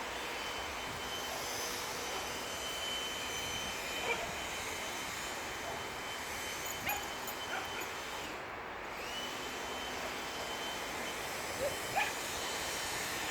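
Leaf blower running steadily in the background, easing off briefly about two-thirds of the way through. A few short puppy yips and barks come through over it, the last pair near the end.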